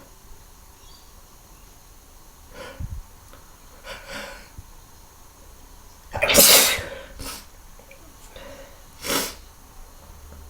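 A person sneezing several times: softer sneezes about three and four seconds in, one loud full sneeze a little after six seconds, a couple of small ones after it, and another fairly loud sneeze near the end.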